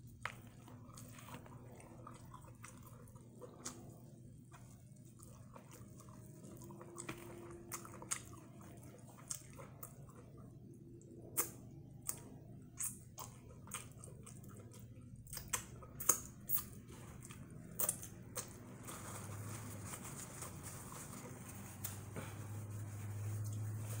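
Chewing and wet mouth smacks from eating battered fried corn on the cob, with scattered sharp smacks and a low steady hum underneath. A soft rustling noise builds near the end.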